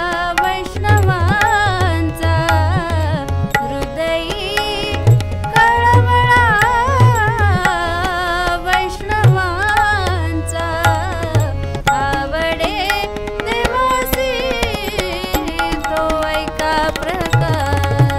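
A woman sings a Marathi devotional abhang with a wavering, ornamented voice over a harmonium's held chords, while a tabla plays a steady rhythm with deep bass strokes.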